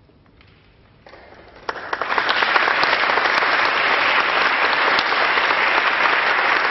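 A quiet moment, then audience applause that breaks out about a second and a half in, rising quickly to steady, dense clapping from many hands.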